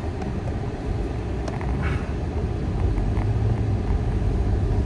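Steady low rumble that grows slightly louder toward the end, with a brief faint higher sound about two seconds in.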